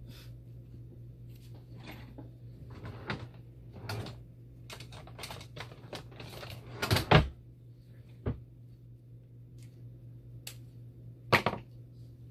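Irregular clicks and knocks of plastic machine parts being handled and rummaged through in a parts tray, with the loudest knocks about seven seconds in and again near the end, over a steady low hum.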